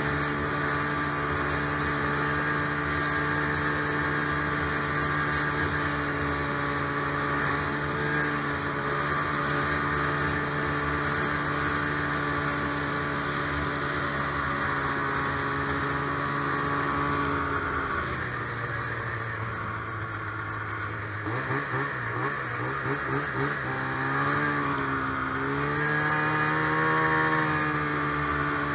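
Polaris snowmobile's two-stroke engine running at a steady cruise. About two-thirds of the way through its pitch drops and wavers unevenly for a few seconds, then climbs back up and settles again near the end.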